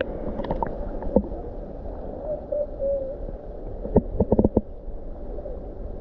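Underwater sound in a freshwater waterfall pool: a low, muffled water rumble with faint wavering tones, a few sharp clicks in the first second and a quick run of five or six knocks about four seconds in.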